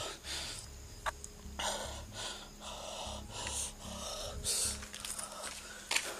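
A man breathing hard in quick gasps, about two a second, his throat tight and choking.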